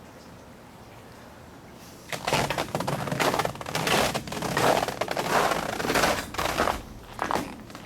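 Footsteps crunching on icy, crusted snow left by an ice storm, starting about two seconds in as a dense run of irregular crackling crunches.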